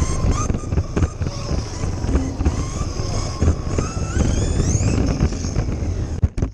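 Electric motor of a Kyosho Mini-Z RC car whining as it drives, heard from on board over a heavy rumble and rattle of the little car running on a carpet track. The whine holds steady, then rises sharply in pitch about four seconds in as the car speeds up. A few sharp knocks come near the end before the sound drops away abruptly.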